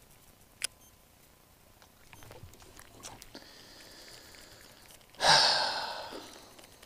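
Baitcasting reel: a sharp click about half a second in and a faint steady whir of reeling, then about five seconds in a loud whirring spin of the spool on a cast that fades out over a second or so.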